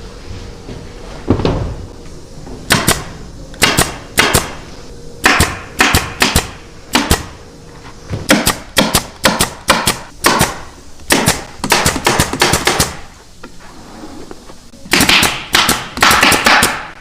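A run of sharp, irregular clacks and knocks from hand-tool work on sofa frames or upholstery, about one to three a second, with a denser cluster near the end.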